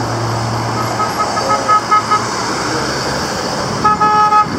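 Road traffic running steadily, with an engine hum that fades about a second in. A run of quick, short horn toots follows, then one louder, half-second horn blast near the end.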